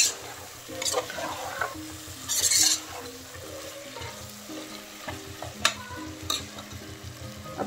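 A spatula stirring and scraping mutton pieces frying in a pressure cooker pot, with sizzling. The scraping is loudest about two and a half seconds in, and a few sharp knocks of the spatula on the pot come later.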